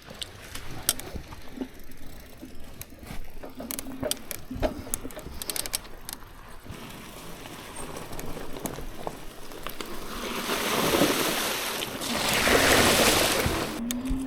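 Wind gusting across the microphone, building to a loud rush about ten seconds in, over scattered light crackles.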